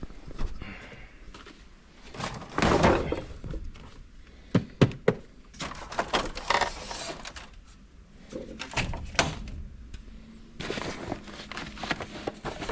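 Rummaging through clutter: objects being moved, scraped and knocked about, with several dull thunks and sharp knocks at irregular intervals.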